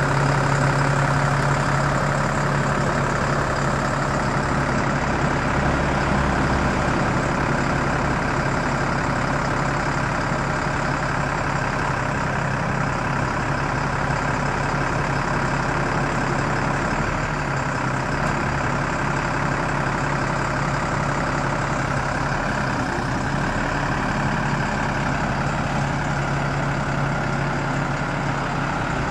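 Volvo FL6 truck's diesel engine running steadily with a constant low hum while its truck-mounted knuckle-boom crane is operated.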